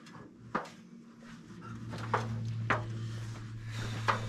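Battery-powered DeWalt chainsaw motor running with a low steady hum that starts about a second and a half in. A few sharp knocks sound over it.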